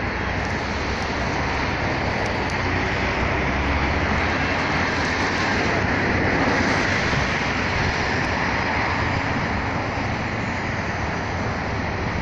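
Steady road traffic noise, an even rushing sound with no distinct events.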